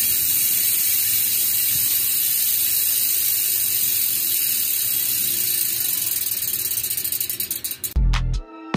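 Aeroic AM-8.5 bicycle rear hub freewheeling as the wheel is spun by hand: its 6-pawl, 72-click freehub gives a steady high buzz, which breaks into separate clicks that slow down as the wheel coasts near the end. Music cuts in at the very end.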